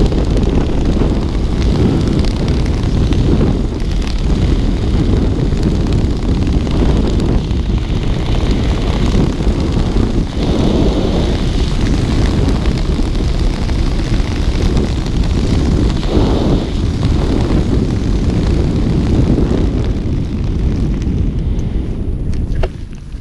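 Airflow buffeting a helmet-mounted camera's microphone during a parachute descent: a loud, steady low rush. It drops away suddenly near the end as the skydiver lands.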